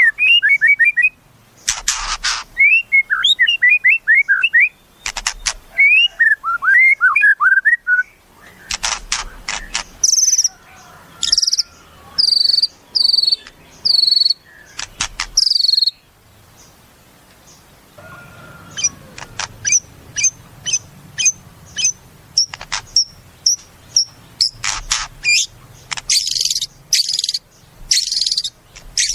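White-rumped shama (murai batu) singing a varied, loud song. Phrases of quick warbled notes alternate with sharp clicking notes and clipped high whistles, with short pauses in between, and a run of fast repeated high notes in the second half.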